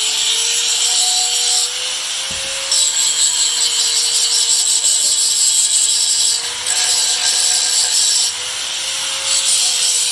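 Sanding or abrading the sewing machine's metal body in long scraping passes, with short lulls between them, over a faint steady hum.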